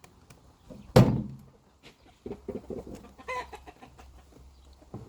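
Chickens clucking, a run of short calls between about two and three and a half seconds in. A loud, sudden knock comes about a second in and is the loudest sound.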